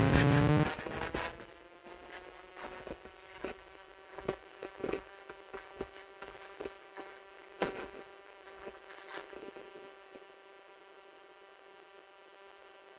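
A rising synthesized intro tone cuts off within the first second. Then come footsteps on a trail of dry fallen leaves and stones, at walking pace, about one and a half steps a second, stopping about ten seconds in. A steady faint hum runs underneath.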